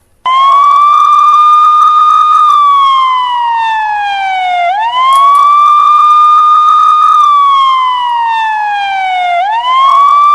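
Wailing police-style siren. Its pitch climbs quickly, holds high for a couple of seconds, then slides slowly down before climbing again, twice in succession.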